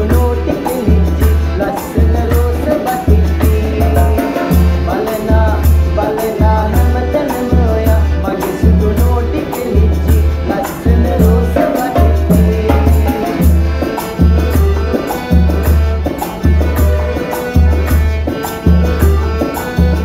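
Calypso-style band music: an accordion melody over hand percussion (bongos and a shaker) and a steady low beat about once a second.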